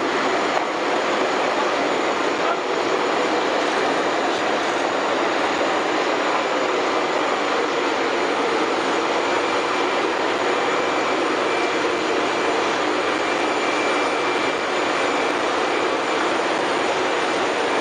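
Aircraft engine running: a steady, even rush of noise with no breaks.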